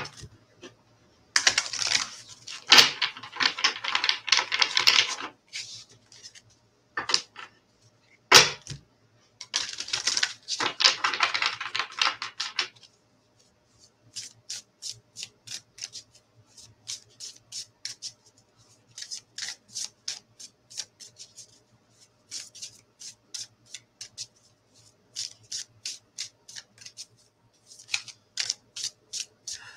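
A deck of oracle cards being shuffled by hand. There are two flurries of rapid card flicks, each lasting about three seconds, then a long run of lighter separate clicks, about three a second.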